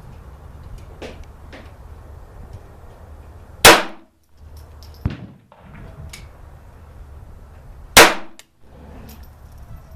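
Kel-Tec P17 .22 LR semi-automatic pistol fired twice, about four seconds apart, each shot a sharp crack with a short decaying tail, with a few faint clicks between.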